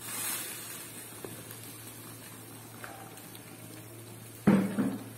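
Gravy simmering in a frying pan and stirred with a wooden spatula as a cornflour slurry is poured in to thicken it, with a brief hiss of pouring at the start. A short louder knock comes near the end.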